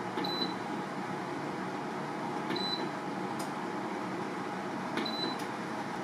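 Inventor Rise desiccant dehumidifier's control panel giving three short high beeps, about two and a half seconds apart, each with a faint click as a button is pressed to step through its modes, over the steady rush of the unit's fan running.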